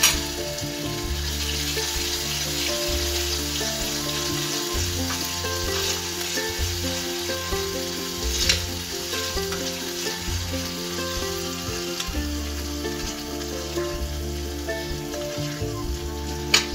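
Ground chili and cumin with ginger–green chili paste sizzling in hot oil in a small saucepan, stirred with a wooden spoon, as the spice masala is fried. A couple of sharp clicks, the loudest just before the end.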